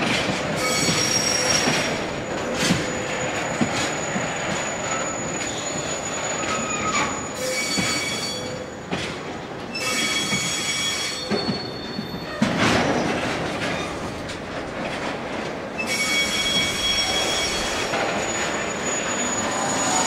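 Loaded oil tank wagons rolling slowly past, their steel wheels squealing in several high steady tones that fade in and out, over a rumble with occasional knocks from the wheels on the track.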